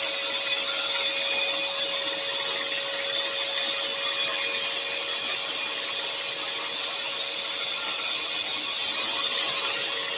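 Axminster Trade AT406SS scroll saw running steadily, its blade cutting a pattern through a thin wooden panel, with the high-pitched whine of a small craft extractor connected to the saw.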